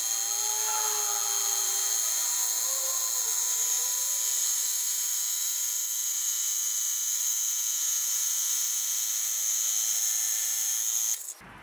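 Makita 12V cordless glass and tile cutter (CC301D) cutting a super hard ceramic tile: a steady, high motor whine with the diamond blade grinding through the tile, its pitch wavering a little in the first few seconds. It cuts off suddenly near the end.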